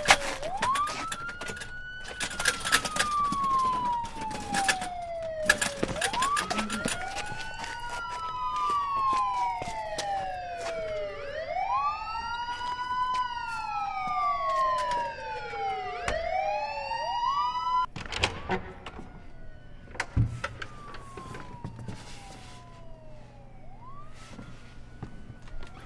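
Police car sirens wailing, each rising quickly and then falling slowly over a few seconds, with two sirens overlapping for much of the time. Sharp clatters punctuate the first few seconds. The sirens grow fainter about eighteen seconds in.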